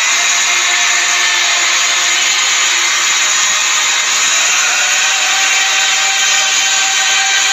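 Steady roar of a stadium crowd cheering, with faint sustained singing beneath it.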